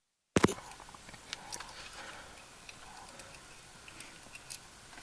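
Dead silence, then the recording cuts in with a sharp knock, followed by faint rustling and scattered small clicks from a handheld camera being handled inside a car.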